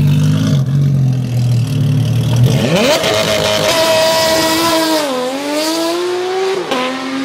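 Porsche 911's flat-six running steadily at low revs, then revving hard as the car pulls away, the pitch climbing steeply and holding high. The pitch dips briefly about five seconds in and drops again near the end.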